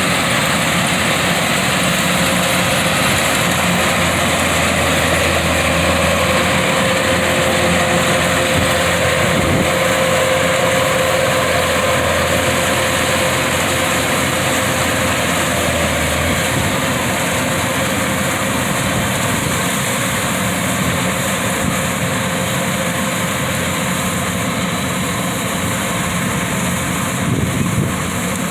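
Kubota 105 combine harvester's diesel engine running steadily as the machine moves, a continuous loud engine hum whose deepest tone eases a little about halfway through.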